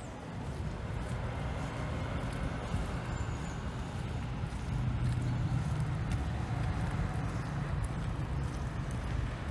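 A motor vehicle's engine running on the street under general traffic noise, a low rumble that swells about halfway through.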